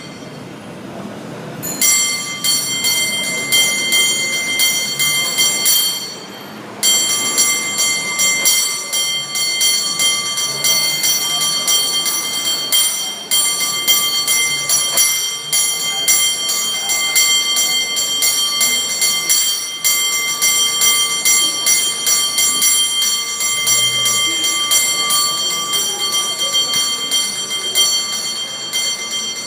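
A cable car bell rung in quick, rhythmic strokes as a contest routine, starting about two seconds in and pausing briefly around six seconds before carrying on.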